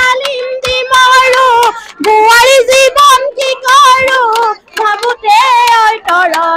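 A single high-pitched voice singing a Bihu song, long held notes that waver up and down, in phrases broken by short breaths.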